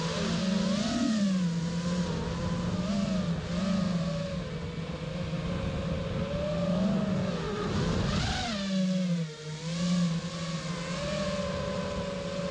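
5-inch FPV racing quadcopter's brushless motors (AMAXinno 2306 1750KV on 6S, spinning Gemfan 5136 props), heard from its onboard camera: a steady motor whine whose pitch wanders up and down with the throttle. About eight seconds in it rises sharply, then briefly drops away before coming back.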